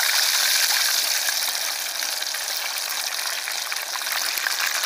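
Food deep-frying in a pot of hot oil: a steady, dense sizzle with fine crackling.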